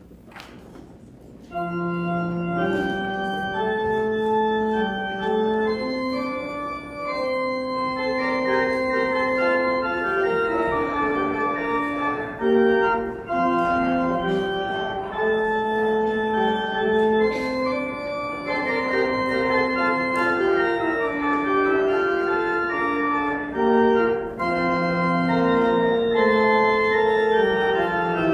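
Church organ starting about a second and a half in and playing held chords with a moving melody line.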